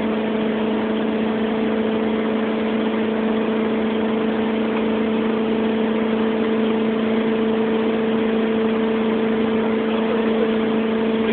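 Motorboat engine running steadily at speed while towing, a constant drone with unchanging pitch over a steady rushing noise.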